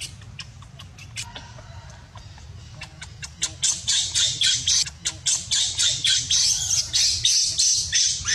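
Baby macaque screaming in distress: a run of short, harsh, high squeals, scattered at first and then loud and rapid, about four a second, from roughly three and a half seconds in.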